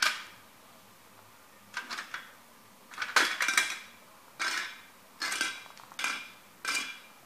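Timberland boots stomping on a vintage plastic kit model car, the brittle plastic cracking and clattering as a body panel breaks off. A series of sharp cracks, with the loudest cluster about three seconds in.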